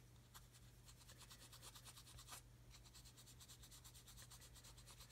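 Faint, rapid scratching of a small paintbrush scrubbing dry metallic pigment powder onto a plastic model part, many short strokes a second, with a slightly louder tick about two seconds in.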